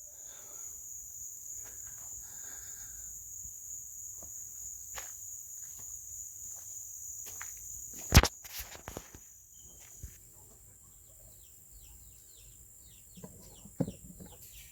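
Steady high-pitched insect trilling from crickets or cicadas, broken by a sharp click a little past halfway. After that the trilling drops away and many quick, short falling bird chirps follow, with a couple of thuds near the end.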